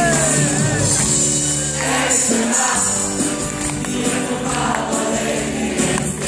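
Live Dutch schlager music from a stage band with light percussion and held backing notes. A male singer's voice is heard briefly near the start.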